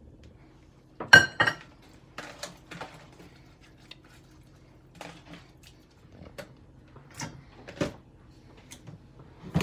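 Bowls knocking and clinking in a steel kitchen sink while fish pieces are handled and rubbed with palm oil in a plastic bowl; a sharp ringing clink about a second in is the loudest, followed by scattered lighter knocks. A faint steady hum runs underneath.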